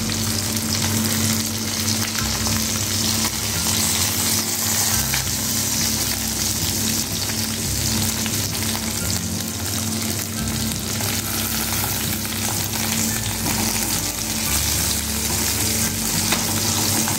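Small bata fish sizzling steadily as they shallow-fry in hot mustard oil in a kadai, with the spatula turning them over to fry the other side.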